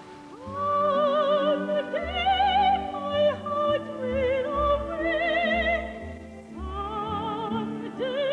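A female soprano singing in operatic style with a wide vibrato, over an instrumental accompaniment. The voice comes in about half a second in, breaks off briefly around six seconds, then carries on.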